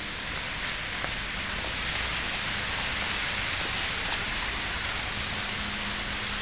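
Steady, rain-like hiss of pool water trickling and spilling into a swimming pool's overflow gutter grating, with a faint steady low hum underneath that grows a little stronger near the end.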